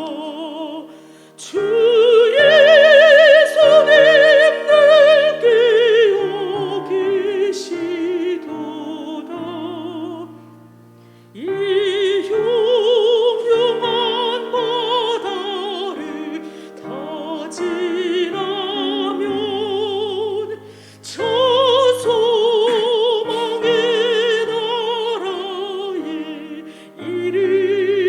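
A woman singing a hymn in an operatic style with wide vibrato, over piano accompaniment, in long phrases with short breaks between them.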